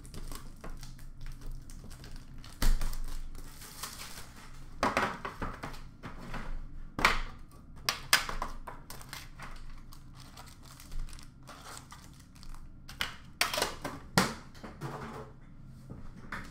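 Plastic wrap and foil card packs crinkling in irregular bursts as hands unwrap a hockey card tin and take out the packs, with one solid knock a few seconds in.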